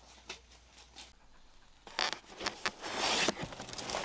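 A cardboard box holding a roll of greenhouse film being handled and opened: a run of sharp scraping, tearing and rustling from about two seconds in, loudest in a longer stretch just after three seconds.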